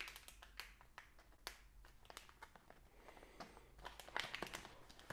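Faint crinkling of a clear plastic sleeve being handled, with a scattering of soft clicks and ticks.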